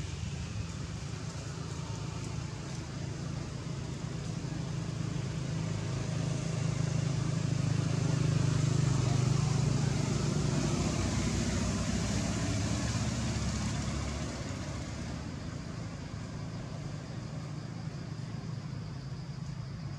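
A steady low engine rumble of motor traffic under a hiss, growing louder about six seconds in and easing off again about fourteen seconds in.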